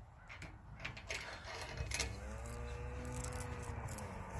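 Small metal greenhouse base parts being handled: a few light metallic clicks as an L-shaped corner bracket is slid into a side piece, with a faint drawn-out tone over the second half.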